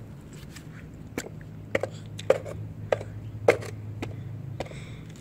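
A series of short, sharp clicks, about eight of them spread irregularly over three and a half seconds, over a steady low hum.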